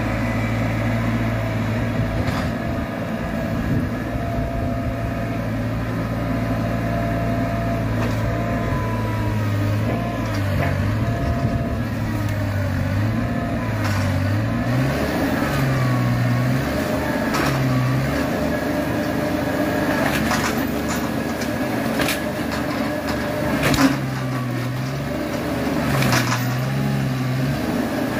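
Compact tractor engine running at a steady speed, then from about ten seconds in repeatedly dipping and picking back up as it takes the load of the front loader pushing against the building. A few sharp knocks come late on, the loudest about 24 seconds in.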